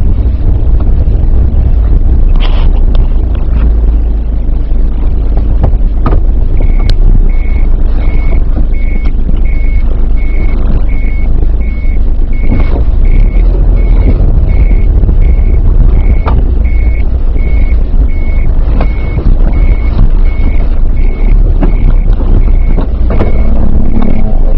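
Steady low rumble of a car heard from inside the cabin. From about a quarter of the way in, a vehicle's reversing warning beeper sounds a short high beep about twice a second.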